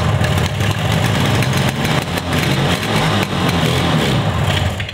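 1972 Yamaha DS7's air-cooled 250 cc parallel-twin two-stroke engine running steadily and loud after starting up. It is running short of fuel, which the owner puts down to a faulty fuel petcock.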